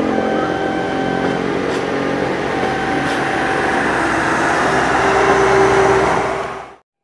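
Passenger train passing close by, wheels running on the rails with a steady roar. It grows loudest as the diesel generator car at the rear goes by, adding a low hum. The sound cuts off suddenly near the end.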